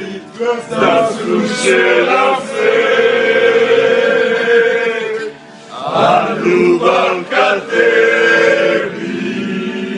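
A group of men singing a football supporters' song together in chant style, with long held notes and a short break about five and a half seconds in.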